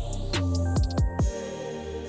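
Electronic dubstep-style background music with falling bass drops and hi-hat ticks; the drops stop about a second and a half in and the music carries on softer.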